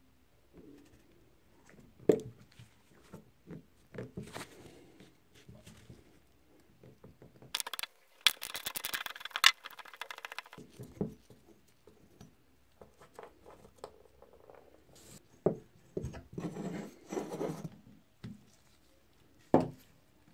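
Metal parts of an old rusty breast drill being handled in a small room: scattered clicks and knocks, with a run of rapid clicking and scraping about eight seconds in and another scraping stretch later on.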